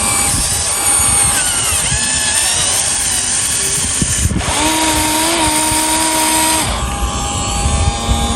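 Small electric motors of a radio-controlled excavator whining. The pitch rises and falls for the first few seconds, then holds a steady whine for about two seconds in the middle.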